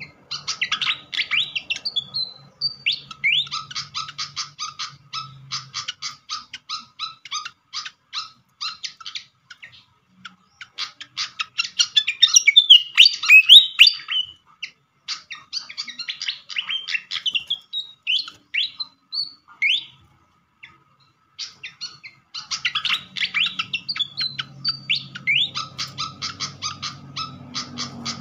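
Pied fantail (sikatan kipas) calling: long runs of rapid, sharp chattering notes mixed with quick upward-sweeping whistles. The calls grow loudest about halfway through, stop for a moment, then start again.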